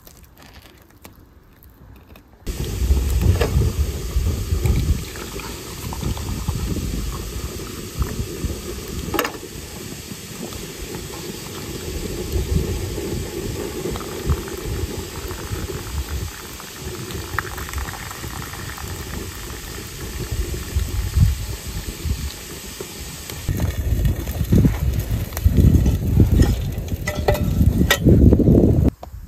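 Cooking over an open fire: sizzling and bubbling with scattered clicks, under heavy gusty low rumbling. The sound starts abruptly a couple of seconds in after a quieter opening.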